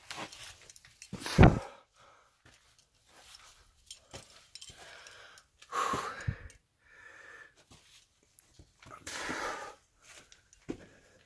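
Heavy breaths and grunts of effort from a person squeezing through a tight rock crawlway, coming in separate bursts a few seconds apart. The loudest, about a second and a half in, comes with a low thump close to the microphone.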